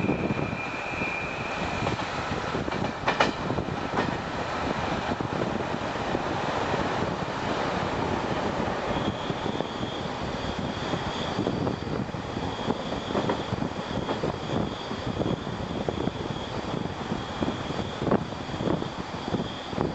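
Passenger train running along the line, heard from an open carriage window: wheels rumbling on the rails with wind noise. A sharp click comes about three seconds in, and a thin high steady tone rings through the second half.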